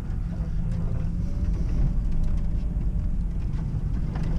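Suzuki Grand Vitara driving slowly over a rough dirt track, heard from inside the cabin: a steady low drone of engine and tyres.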